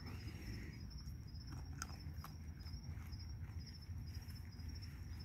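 Raccoons crunching hard dry food, with a few sharp crunches, over a steady, pulsing high trill of night insects.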